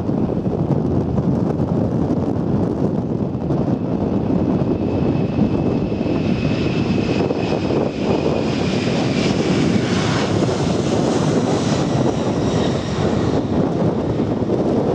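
Boeing 747-400's four Pratt & Whitney PW4056 turbofans at takeoff power during the takeoff roll. A deep, steady rumble carries a high engine whine that grows louder from about six seconds in, then slides down in pitch as the jet passes close by.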